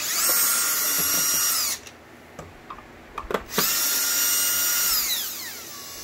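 Power drill backing screws out of a vacuum cleaner's bottom plate: two runs of a steady high whine. The first lasts under two seconds; the second starts about three and a half seconds in and winds down near the end. A few light clicks come between them.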